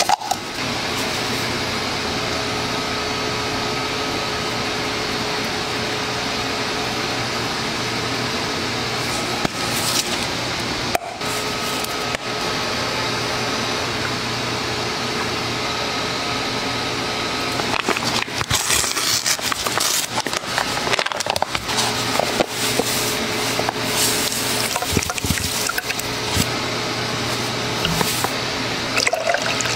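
Steady machine noise with a constant low hum and a few faint held tones. In the second half it is joined by irregular clicks and rustles of handling.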